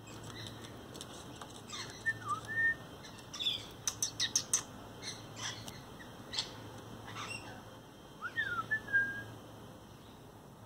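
Rainbow lorikeet giving short, sharp chirps in scattered clusters, with two brief whistled notes that dip and rise.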